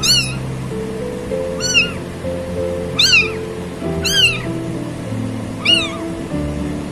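Kitten mewing: five short, high-pitched mews, each rising then falling in pitch, about one to one and a half seconds apart, over background music.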